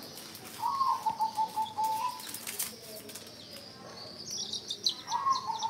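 Baby chicks peeping: a quick run of high, falling chirps from about four seconds in, after a lower warbling call repeated near the start. A single sharp click about halfway through.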